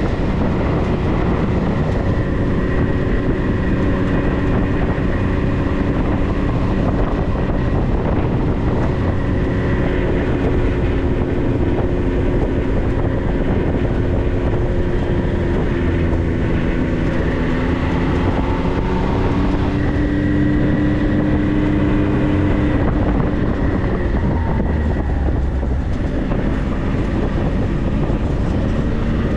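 A 4x4 vehicle's engine running on the move, a dense steady rumble with the engine pitch rising and falling in the middle, and a steady high whine over it.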